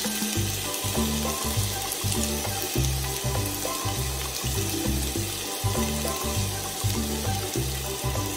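Rice frying in a hot pan with a steady sizzle as oyster sauce is poured in, under background music with a bass line that moves in short, even notes.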